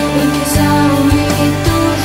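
Background music with a steady beat under held instrumental tones.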